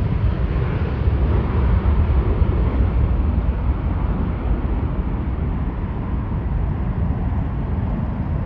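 Four-engined jet airliner's engines at takeoff thrust as it lifts off and climbs away, a steady loud rumble whose higher hiss slowly fades as the aircraft recedes.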